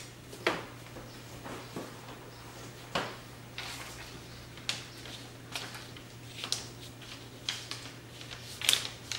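Large paper template rustling and crinkling as it is handled and pressed by hand against a car's body panel, in a string of short, irregular crinkles, the loudest near the end, over a faint steady low hum.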